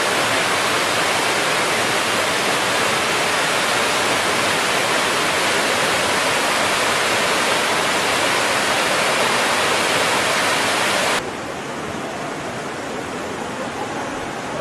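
Waterfall: a steady rush of falling water. About eleven seconds in it cuts abruptly to a quieter, duller water sound.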